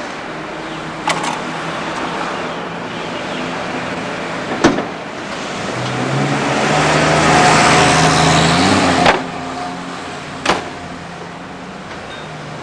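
Mechanical noise from a standing Melbourne W-class tram: a low hum and rumble swells over a few seconds, stays loud, then stops suddenly with a click. A few other sharp clicks come along the way.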